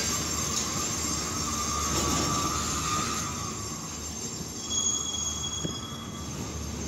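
Double-stack intermodal container train rolling past: steel wheels on the rails with a steady squeal that fades about halfway through, then thin high-pitched wheel squeals near the end.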